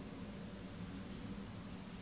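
Quiet room tone: a steady low hum and hiss, with no distinct event.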